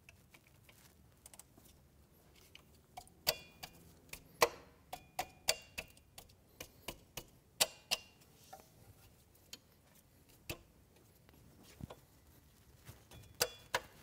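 Scattered sharp metallic clicks and clinks as a camshaft locking tool is loosened and adjusted by hand on the engine's camshafts, with a busy run of clicks in the middle and a few more near the end.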